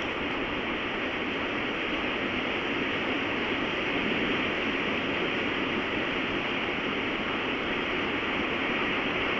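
Storm wind blowing hard as a steady rushing noise, swelling slightly about four seconds in.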